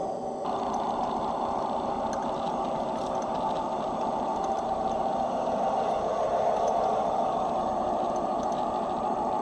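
Homemade 5-inch-gauge ride-on model of a MaK 1200 diesel locomotive running along the track: a steady drive and rolling noise from the locomotive and its wheels on the rails, with a few light clicks now and then.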